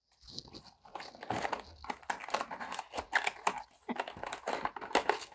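A cardboard blind box being opened by hand: its flaps and packaging rustle and crinkle in a quick, irregular run of small clicks.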